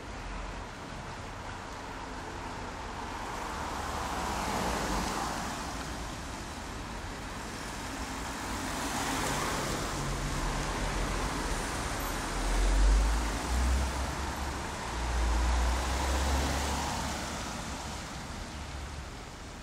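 Street traffic: several cars and a van driving past one after another, each one swelling and fading. A deep low rumble comes in the second half.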